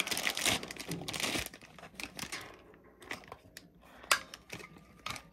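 Clear plastic zip-lock bag crinkling as it is handled and opened, then scattered small clicks and knocks of handling, with one sharp click about four seconds in.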